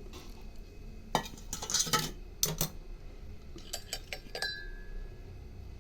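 Kitchen utensils clinking and knocking: a handful of sharp strikes in two clusters, the later one about four seconds in leaving a short ringing tone.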